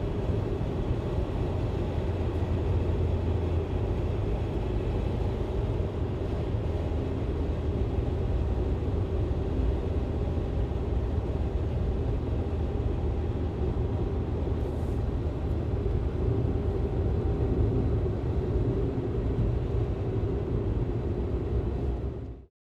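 Cabin ambience inside a moving car: a steady low rumble of engine and road noise. It fades out quickly right at the end.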